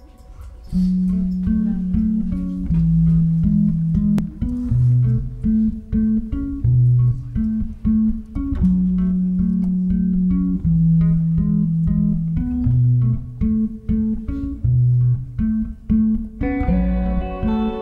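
Electric bass guitar playing a slow melodic intro line of single held notes, starting about a second in. Near the end a brighter, higher-pitched instrument joins in.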